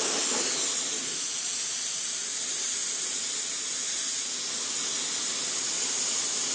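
Compressed-air mist coolant sprayer on a belt grinder hissing steadily as its nozzle blows water out in a fine mist, while the nozzle is adjusted by hand. A lower rushing noise underneath fades out about a second in.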